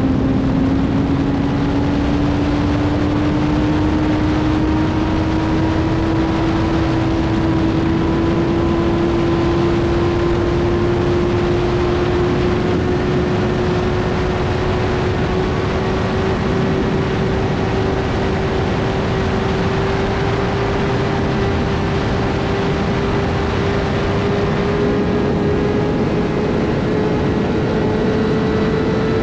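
2007 Suzuki GSX-R 1000 K7's inline-four engine held on full throttle in a high gear, its pitch rising slowly and evenly as the bike pulls toward 240 km/h on the rear wheel. Heavy wind noise runs under it.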